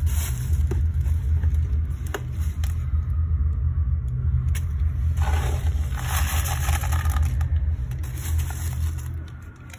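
A black plastic bin bag rustling and crinkling, then a plastic litter scoop scraping through cat litter for a few seconds past the middle, all over a steady low rumble.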